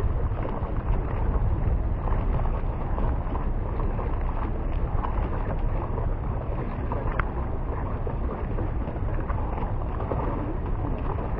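Wind buffeting the microphone: a low, even rush that rises and falls slightly, with a faint click about seven seconds in.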